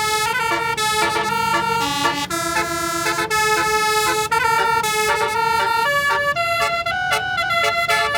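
Indonesian basuri musical bus horn ("telolet") playing a tune, loud, one note after another with short breaks between them.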